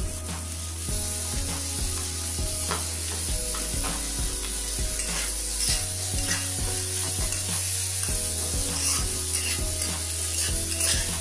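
Squid pieces sizzling in a hot wok as they are stir-fried, with repeated scrapes and clicks of the spatula against the pan.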